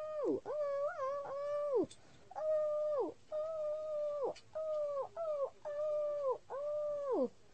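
A child's voice making a string of about eight held, wordless high notes, each sliding down in pitch at its end.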